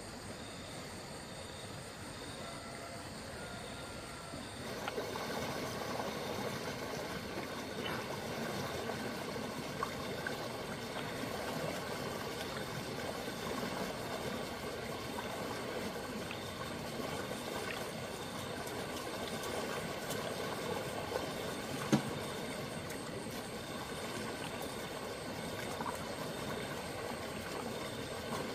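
Water running and gurgling in a stream, a steady rush that grows louder about five seconds in. There is a single sharp knock about three-quarters of the way through.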